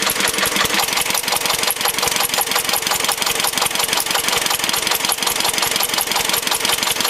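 Lister-style slow-speed diesel generator engine running on vegetable oil under electrical load, with a rapid, even knocking beat. It has almost no exhaust silencing and no intake silencer, so it sounds loud.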